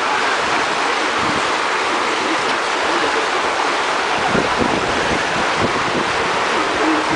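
Water rushing and churning in a water slide's start pool, a loud, steady rush.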